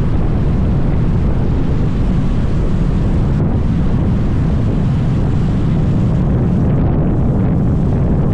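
Steady, loud low rumble of a moving vehicle, with wind noise on the microphone.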